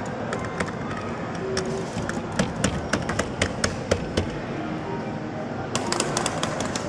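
Busy claw-machine arcade background: a steady mix of noise, faint music and voices. A quick run of sharp clicks, about four a second, comes from about two seconds in to past the four-second mark.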